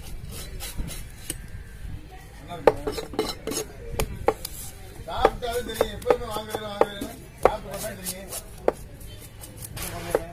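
A knife scraping scales off a whole fish on a wooden chopping block, with sharp, irregular knocks and taps of the blade and fish against the block.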